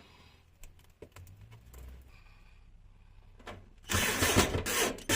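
Hand-work noise on car parts: a few small clicks and knocks, then a loud scraping rustle with dull thumps starting about four seconds in.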